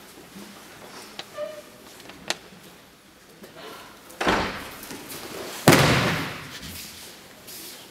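A judoka is thrown onto tatami mats. About four seconds in comes a first burst of noise as the pair move. About a second and a half later the loudest sound follows: the sharp slap and thud of a body landing in a breakfall, echoing briefly.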